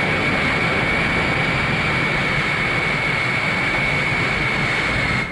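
Boeing Dash 80 prototype's Pratt & Whitney jet engines running steadily: a loud rushing noise with a high, steady whine, cutting off suddenly at the end.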